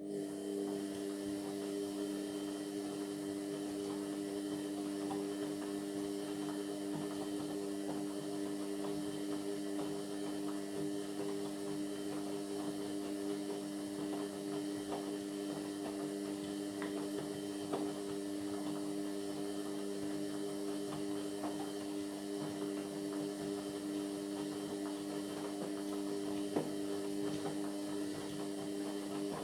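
Indesit MyTime washing machine's drain pump humming steadily for about half a minute, starting and cutting off abruptly, with a few faint clicks and gurgles.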